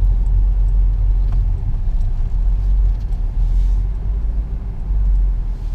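Steady low rumble of a car, the engine and road noise heard from inside the cabin while it drives.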